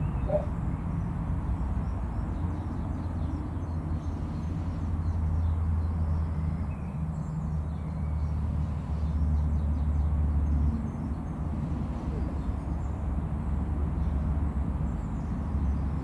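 Outdoor ambience: a steady low rumble that swells and eases a couple of times, with faint, scattered bird calls in the background.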